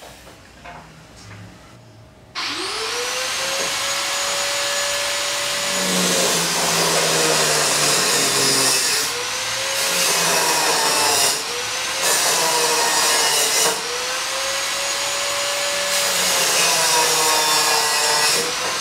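Angle grinder spinning up about two seconds in, then grinding metal, its whine sagging and recovering several times as it bites under load.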